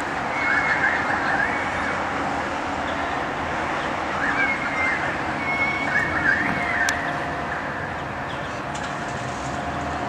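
Two bouts of bird calls, one starting about half a second in and another from about four to seven seconds in, over a steady hum of distant traffic.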